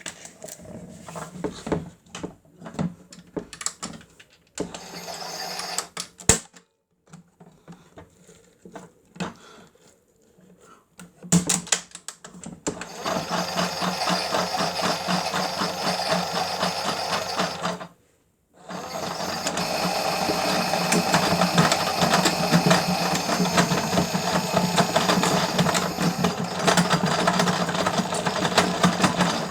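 Miele W1 toy washing machine's small motor whirring with a fast rattle as its drum turns, cutting out briefly about two-thirds through and starting again. Before the motor starts there are scattered clicks and knocks.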